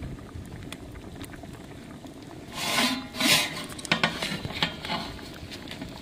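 Large aluminium pot of gudalu boiling on a wood fire, bubbling with small clicks and crackles. Two louder noisy bursts come about two and a half to three and a half seconds in, with a few sharper knocks after.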